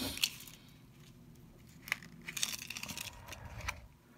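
Crinkling and rustling of jewelry packaging being handled, with a light click about two seconds in and a busier patch of crinkling soon after.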